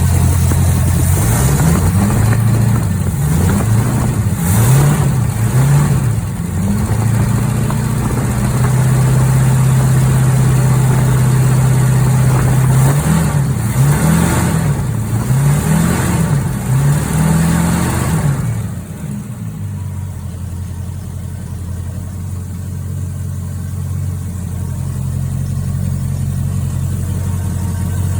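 1968 Ford Mustang's engine running on its first start in 34 years. It is blipped up and down several times, held at a fast idle, blipped again, then drops to a lower steady idle a little over halfway through.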